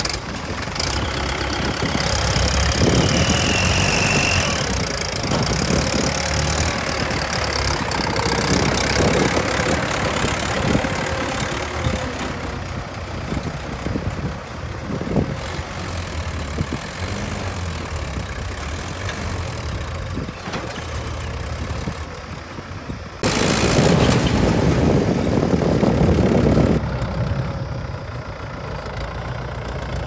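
A Mahindra 475 DI tractor's diesel engine runs steadily as it pulls a loaded earth trolley away. About 23 seconds in, a louder rushing noise cuts in for some three seconds and then stops abruptly.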